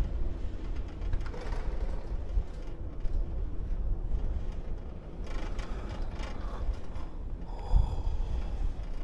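Ride on a Doppelmayr detachable six-seater chairlift: a steady, gusty low rumble of wind and chair movement, with light mechanical rattling of the chair on the haul rope. There is a low thump near the end.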